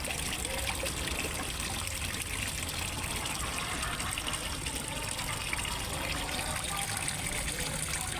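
Water trickling and splashing steadily into a fish pond, an even, unbroken rush.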